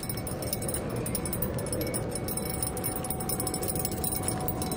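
Spinning fishing reel being cranked steadily to bring in a hooked fish, over a constant background hiss.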